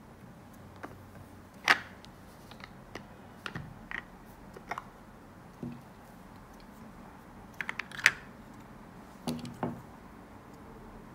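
Scattered light clicks and knocks from handling a lacquered papier-mâché box and its napkin rings: the lid coming off and the rings being lifted out and set down. The sharpest clicks come about two seconds in and about eight seconds in, with a few duller knocks near the end.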